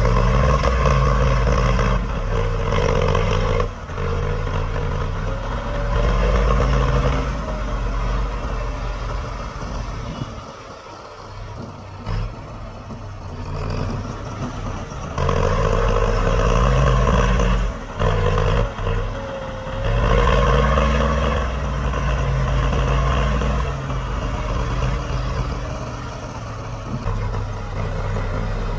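Diesel engine of heavy earthmoving machinery working under load, revving up in surges of a few seconds and easing back down several times.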